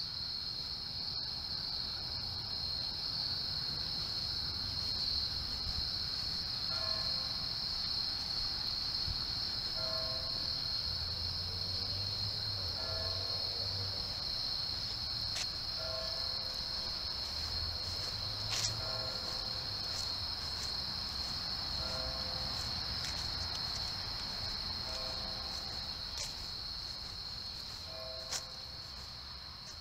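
A steady high-pitched insect trill, with soft musical notes recurring about every three seconds and a few faint clicks.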